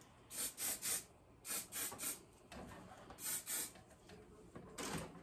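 Hand-held spray bottle misting hair: about nine short hissing sprays in quick groups of three, three, two and then one near the end.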